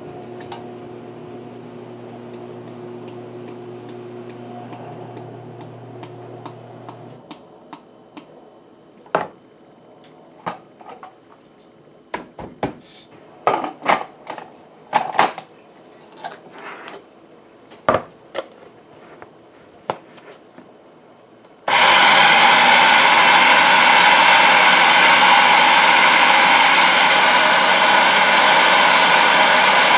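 Scattered clicks and knocks of a food processor's lid and a can being handled, then, about two-thirds of the way in, the food processor's motor starts suddenly and runs loud and steady, mixing batter.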